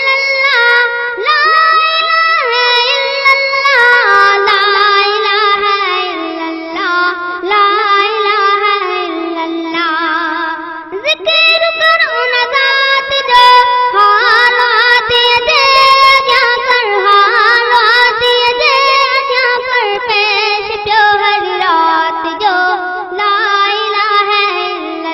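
A boy singing a Sindhi hamd, a devotional hymn in praise of God, in a high voice with wavering, ornamented pitch and several vocal lines overlapping.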